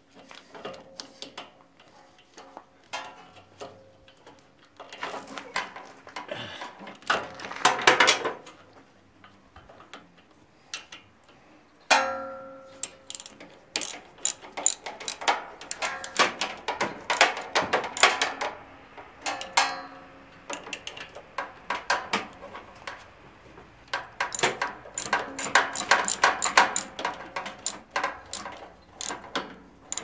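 Socket ratchet clicking in quick runs as it drives in the starter motor's mounting bolts. About twelve seconds in there is a metal clank that rings on briefly.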